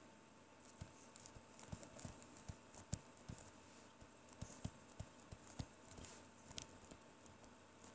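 Faint, irregular taps of a stylus tip on a tablet screen while writing by hand, about a dozen and a half small clicks over several seconds.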